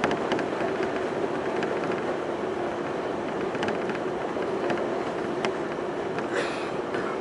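Semboku Rapid Railway 5000 series electric train running along the line, heard from inside the car: a steady rumble with a low held tone and scattered short clicks. A brief hiss comes about six seconds in.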